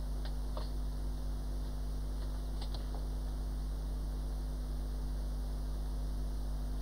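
Steady low electrical hum with a constant hiss, and a few faint light clicks about half a second in and again near the middle.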